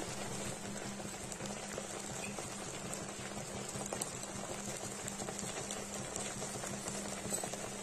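Water with taro leaves and dried red chillies simmering in an uncovered nonstick kadai: a steady soft bubbling with many small pops. A low steady hum runs underneath.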